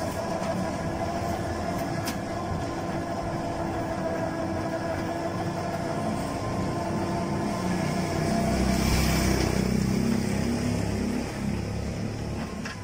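Electric auto-rickshaw converted from CNG, with a 48 V 800 W motor and shaft drive, moving along a rough street: a steady whine from the drive over rolling road noise and body rattle. A heavier low rumble comes about eight seconds in, and the sound eases off near the end.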